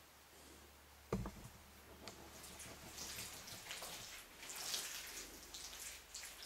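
Gloved hands kneading and squeezing wet, rehydrated straw-tempered clay in a plastic tub: soft, irregular wet squelching. A single sharp knock comes about a second in.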